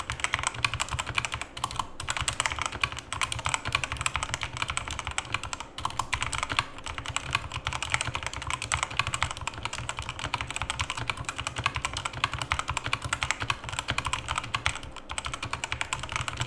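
Typing on a Robot Workmate IV wired mechanical keyboard: a fast, continuous run of key clicks with a few short pauses.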